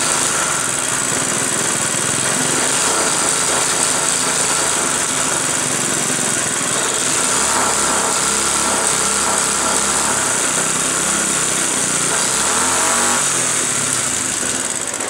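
Small four-stroke engine of a homemade motorized bicycle running steadily on its first test run.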